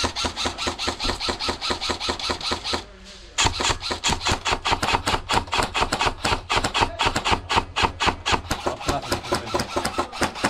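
Airsoft electric rifle (AEG) firing long full-auto strings: a rapid, even rattle of shots with one short break about three seconds in.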